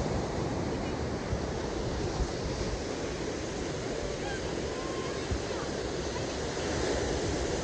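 Steady wash of surf breaking on a sandy beach, with wind rumbling on the microphone and a few brief low thumps.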